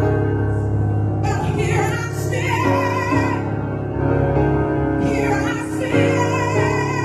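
A female solo voice singing a slow ballad live over sustained band accompaniment, with wide vibrato on the held notes. A phrase comes in about a second in and another about five seconds in.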